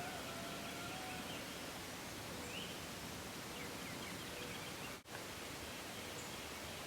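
Quiet outdoor ambience: a steady hiss with a few faint, short bird chirps, and a brief sudden dropout about five seconds in.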